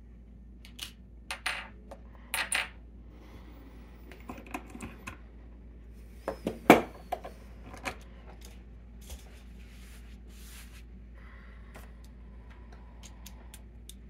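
Metal clinks and knocks from handling a steel padlock, its vise and lock picks: a scatter of sharp clicks, the loudest about six and a half seconds in, then a few quieter ticks.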